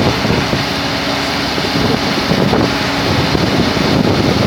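Vantec forestry wood chipper running steadily, a dense even rumble with a faint steady hum through it.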